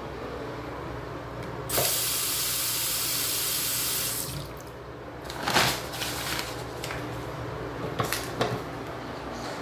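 Bathroom sink faucet turned on, water running in a steady stream into the basin for about two and a half seconds, then shut off. About a second later comes a brief loud rush of noise, and two short clicks near the end.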